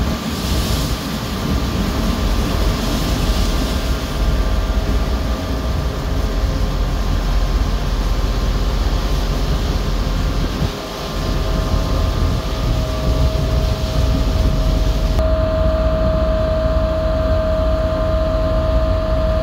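Pilot boat's engines running at speed with a steady drone, over the rush of water and spray along the hull. About fifteen seconds in it changes suddenly to a duller, steadier hum with one strong tone.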